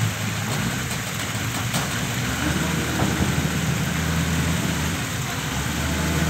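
Heavy diesel engine of a wheel loader idling steadily, growing a little stronger about two and a half seconds in.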